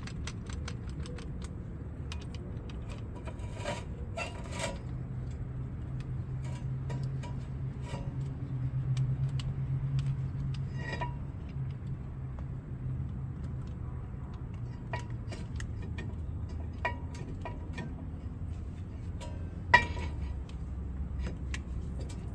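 Metal clicks and clinks of a tool against a brake caliper and pads while the rear caliper piston is pushed back into its bore, with one sharper click near the end. A low hum swells in the middle and fades away.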